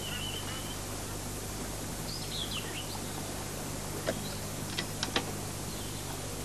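Small birds chirping in two brief bursts over a steady low hum and hiss. About four to five seconds in come four sharp clicks: the catches of a tackle box and the lid of a wicker basket inside it being opened.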